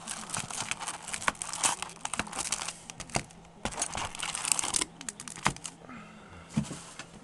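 Foil-wrapped Upper Deck A Piece of History baseball card packs crinkling, with irregular sharp clicks as they are handled and laid on a wooden table. It goes quieter for about a second, five seconds in.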